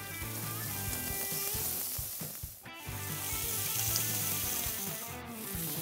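Pork and red-onion skewers sizzling on the grate of a gas tabletop barbecue as they grill, over background music.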